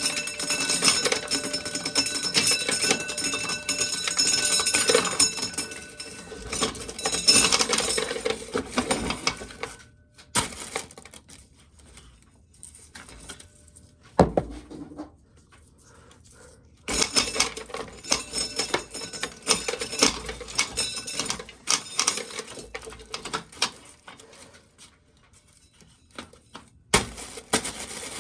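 Corn sheller stripping kernels off an ear of dried corn: a dense, rapid clatter of kernels for about ten seconds, then scattered clicks with a sharp knock, then a second run of clatter. The sheller's inside teeth are worn bare, so it leaves kernels on the cob.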